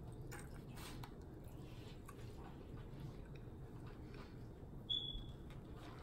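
Faint mouth sounds of eating hot chicken wings: soft chewing and small wet clicks. A short high squeak comes about five seconds in.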